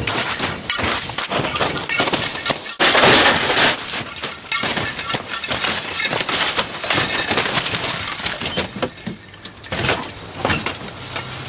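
1991 Ford Sierra Estate rolling over at speed: repeated crunching impacts of the body on tarmac with breaking glass, the loudest crash about three seconds in, then fewer knocks and clinks of debris as the wreck slides to a stop.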